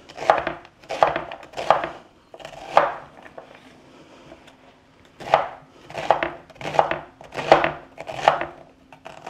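Chef's knife cross-cutting a red onion on a wooden cutting board: evenly spaced chops about one every 0.7 s, four strokes, a pause of about two seconds, then five more.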